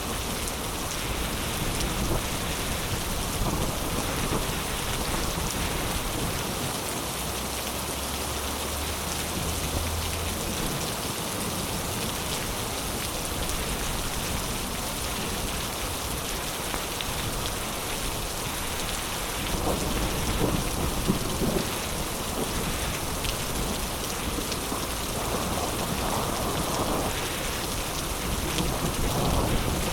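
Heavy rain pouring steadily, with rolls of thunder that swell the sound about two-thirds of the way through and again near the end.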